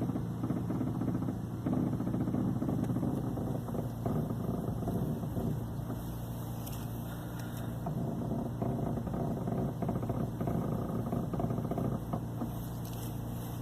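Ford New Fiesta idling steadily while the steering is being turned, with a few scattered faint knocks over the engine hum.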